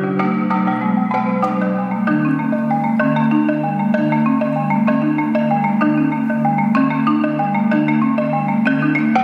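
Solo marimba played with mallets: quick notes in the upper range over a steadily repeating low bass pattern.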